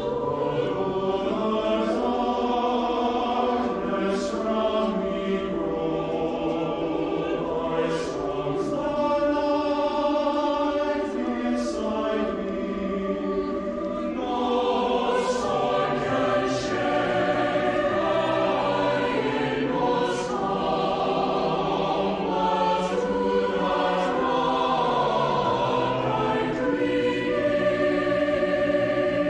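A mixed choir of singers wearing face masks, singing a choral piece in harmony. Long held chords shift from one to the next, and sharp 's' consonants stand out now and then.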